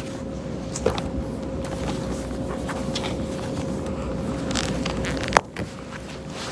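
Room noise with a steady electrical hum and a low rumble, and scattered clicks and rustles of folders and a pen being handled close to a phone's microphone. One sharp click about five seconds in is the loudest sound.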